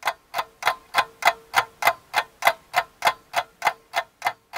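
Clock ticking sound effect marking a time skip: an even run of sharp ticks, about three a second, with a faint steady tone under most of them.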